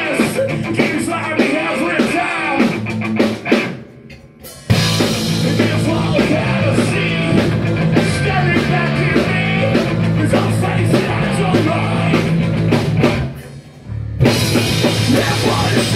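Live punk rock band playing loud: singer, distorted electric guitars, bass and drum kit. The band stops dead twice, about four seconds in and again about thirteen seconds in, and each time crashes back in together a second later.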